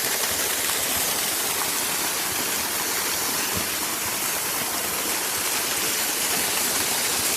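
Waterfall rushing, a steady roar of falling water close to the microphone.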